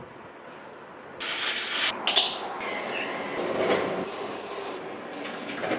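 Aerosol deodorant sprayed in three short bursts of hiss, each about a second long, a second or so apart, with a small click between the first two.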